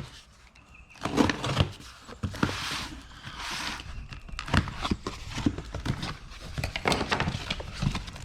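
A cardboard box being opened and its contents handled: a string of knocks, clicks and rustling as flaps are pulled open and items inside are shifted.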